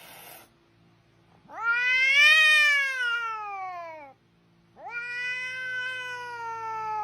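Two long, drawn-out wailing cries. The first rises and then falls over about two and a half seconds. The second starts about five seconds in and slides slowly downward.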